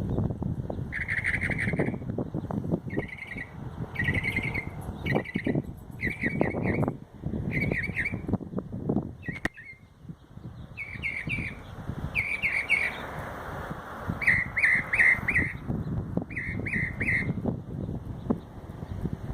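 A desert songbird mimicking a car alarm: short clusters of two to four quick, identical notes, repeated about once a second with a brief pause midway. A low rumble of background noise runs underneath.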